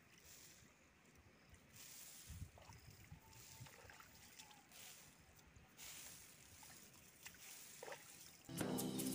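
Faint outdoor noise with wind rumbling on the microphone and a few soft clicks. Near the end, flute music begins.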